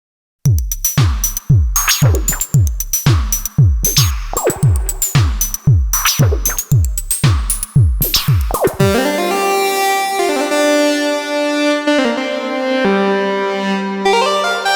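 Synthesizer music: deep, pitch-dropping kick-drum-like hits about two a second with high sustained tones above them, giving way at about nine seconds to held chords over a steady bass note.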